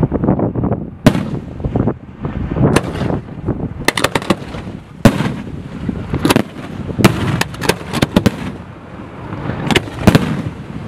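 Fireworks display: a dozen or so sharp bangs of bursting shells at uneven intervals, some in quick clusters, over a continuous low rumble of launches and echoing detonations.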